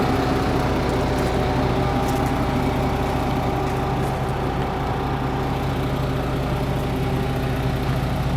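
MAN TGS 400 concrete mixer truck's diesel engine idling steadily, a low even rumble with a steady hum above it.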